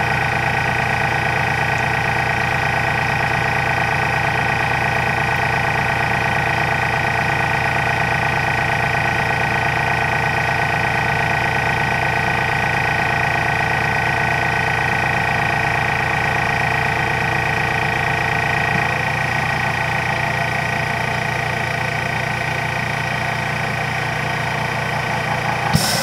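Goodnature M-1 cold-press juicer's electric press running through its pressing cycle, a steady mechanical hum and whine as it squeezes the juice out of the pulp bag; its tone shifts slightly about 19 seconds in.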